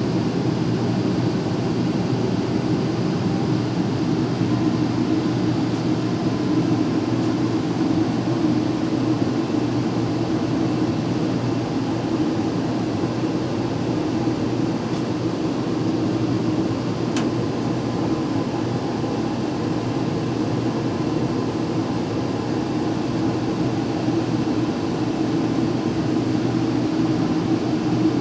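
Home furnace running, a steady hum and rush of air with no change in level. One faint click about two-thirds of the way through.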